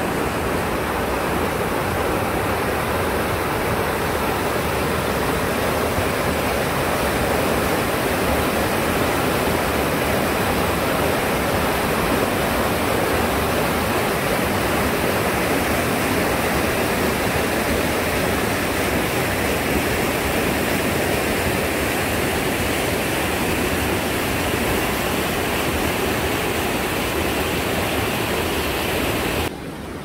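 Mountain stream rushing over rocks in shallow rapids, a steady full rushing noise. It drops suddenly to a softer flow just before the end.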